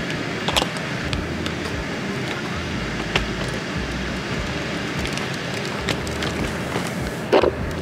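Outdoor street ambience: a steady rumble of traffic, with scattered small clicks and a brief louder sound near the end.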